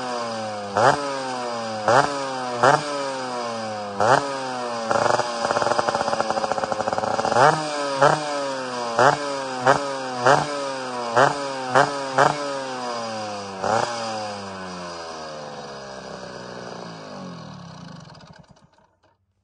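Two-stroke Vespa scooter engine with a 144 cc Quattrini kit, standing still and still a bit cold, blipped sharply about a dozen times, with one longer held rev about five seconds in. It then settles to a lower idle and cuts out near the end.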